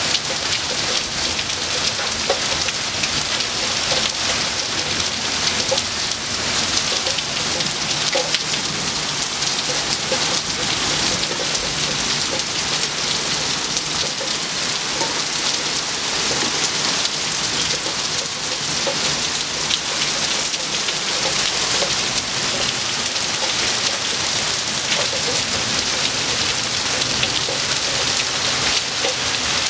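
Heavy thunderstorm rain pouring steadily onto the ground and hard surfaces, with a dense patter of drops.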